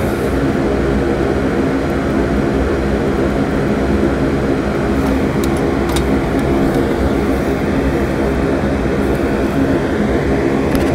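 Solder fume extractor fan running with a steady, loud droning hum. A couple of faint clicks come about five to six seconds in.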